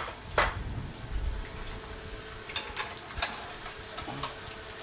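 Hot oil sizzling steadily as sliced potatoes and eggs fry in pans, with a few sharp clicks over it and a faint steady hum underneath.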